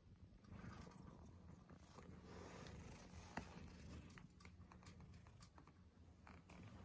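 Domestic cat purring faintly, a low rapid pulsing, with a few light clicks and one sharper tick about three and a half seconds in.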